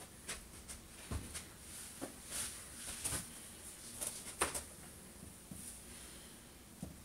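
Clothing rustling as a dress and bodystocking are pulled and adjusted, with a few soft thumps of high-heeled steps on carpet, the clearest about a second in and halfway through.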